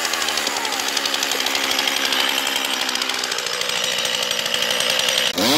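Stihl two-stroke chainsaw idling steadily out of the cut, its pitch settling in the first second, then revved up sharply near the end.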